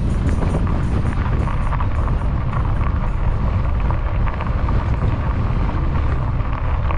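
Wind rumbling on the microphone while riding an e-bike, with the tyres crackling and rattling over a rough dirt trail.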